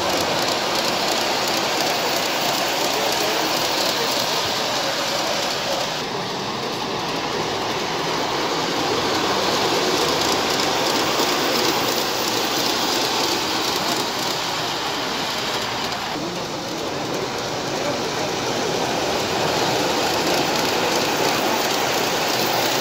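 Large-scale model train running on brass track, a steady rolling clatter of metal wheels on the rails as the passenger cars pass close by.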